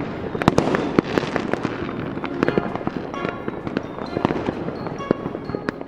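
Cartoon magic sound effect: a dense crackling hiss with many sharp pops, like fireworks, and a few short ringing tones, as a spell conjures up a classroom.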